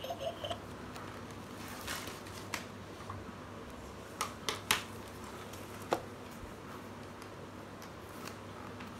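Handling noise from a hardback children's sound book: a few soft clicks and knocks as it is closed, turned over and opened again. The end of an electronic sound effect from its button panel fades out just at the start, over a faint steady hum.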